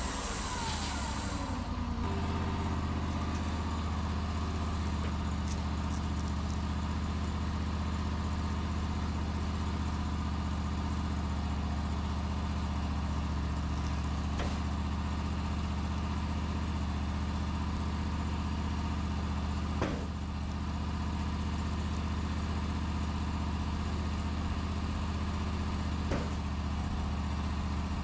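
Wood-Mizer LT40 portable bandsaw mill running steadily while its band blade saws through a tamarack (larch) log. There are a few faint knocks along the way.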